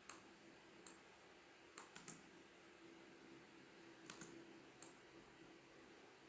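Near silence broken by a handful of faint, scattered computer-mouse clicks, irregularly spaced and some in quick pairs.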